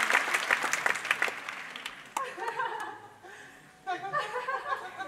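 Audience applauding, fading away over the first two seconds, after which voices are heard talking.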